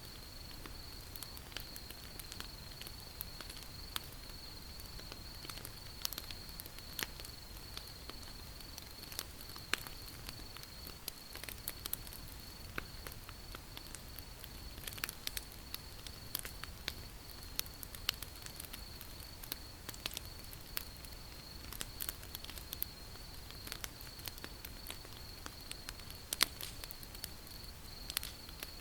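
Wood campfire crackling: irregular sharp pops and snaps over a low, steady burning hiss. A steady high-pitched tone runs underneath throughout.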